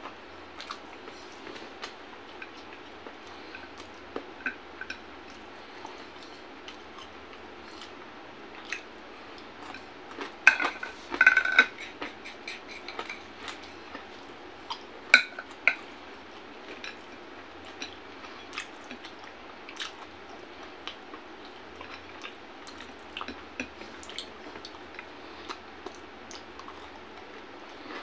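Eating by hand from a ceramic plate and small bowl: scattered small clicks and clinks of the dishes being handled, with soft mouth sounds. A run of louder clinks comes about ten to twelve seconds in, and one sharp clink near fifteen seconds.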